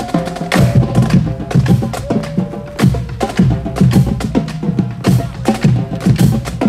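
Marching band drumline playing a street cadence: crisp stick and rim clicks in a quick, even rhythm over snare and bass drum strokes.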